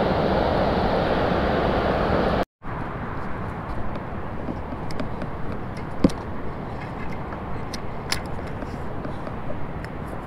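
Steady rushing roar of water pouring through a dam spillway. After a brief cut it drops to a quieter rushing background with scattered small clicks and one sharp click about six seconds in, as a spinning reel and terminal tackle are handled close to the microphone.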